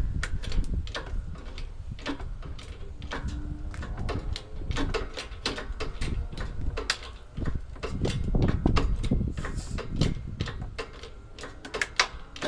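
A plastic coffee maker cracking, creaking and popping over and over as it is crushed, with dull low rumbles in between.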